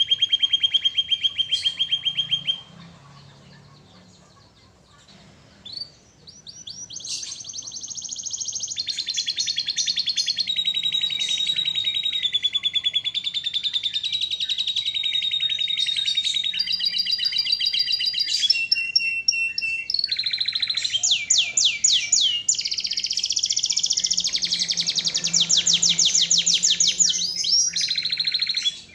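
Domestic canary singing in full, fast trilled song: rapid rolls and twittering phrases. A short phrase comes at the start, then a brief pause, then one long unbroken run of song from about six seconds in until near the end.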